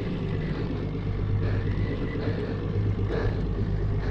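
A boat's engine running steadily with a constant low hum, under a haze of water and wind noise.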